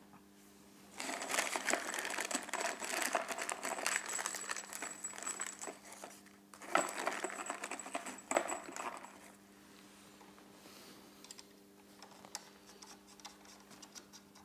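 Packaging crinkling as it is handled, in two stretches of several seconds, followed by a few light clicks and taps.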